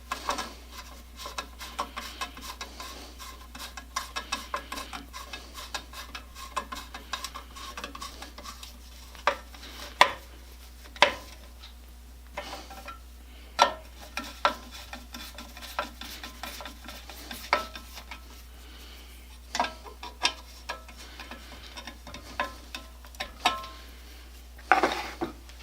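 Hand tools clicking and clinking against metal chainsaw parts while bolts are fitted. A dense run of fine rapid clicking fills the first third, then come scattered sharp metallic clinks and knocks, two of them louder about ten and eleven seconds in.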